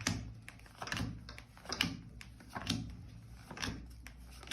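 Tarot cards being laid down one after another onto a table, a short sharp tap about once a second.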